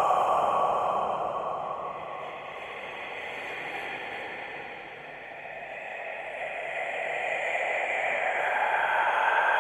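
Scary whisper sound effect: a breathy, hissing voice-like noise whose tone drifts slowly. It fades down toward the middle and swells back up near the end.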